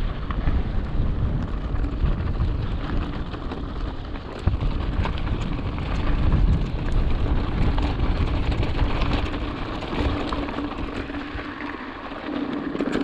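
Mountain bike riding along a road: wind buffeting the helmet camera's microphone over the rolling noise of the tyres, with a steady crackle of small ticks.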